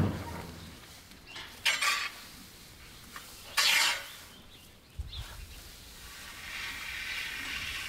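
Loose hay rustling as it is tossed with a pitchfork. Two short swishes come about two seconds apart, then a dull thump near the middle, then a soft steady rustle toward the end.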